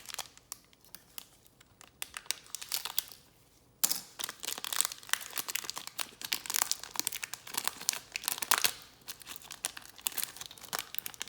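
Silver foil wrapper of a trading-card pack crinkling and tearing as it is opened by hand: sparse crackles at first, then a dense run of louder crackles from about four seconds in.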